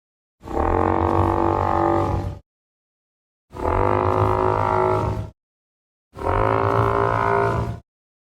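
Film sound effect of a Parasaurolophus call: three long, low, resonant honks of about two seconds each, held at a steady pitch, with a second or so of silence between them.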